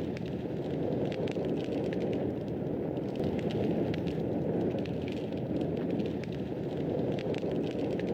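Wood fire burning in a fireplace: a steady low rushing of flames with frequent small crackles and pops scattered through it.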